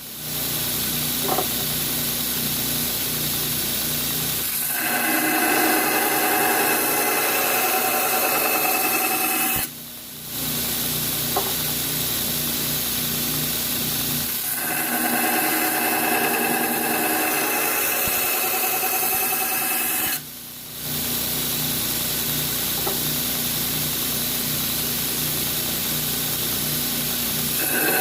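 Power grinder running and grinding steel: a steady motor hum under a grinding hiss. The grinding grows fuller and louder for stretches of about five seconds, with three brief drops about ten seconds apart.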